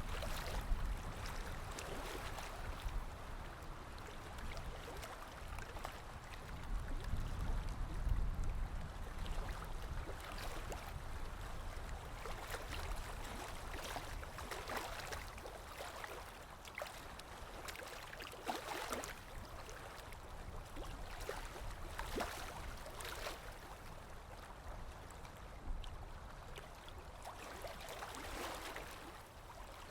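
Sea waves lapping and splashing in small irregular splashes over a steady low rumble of water, the rumble swelling during the first several seconds.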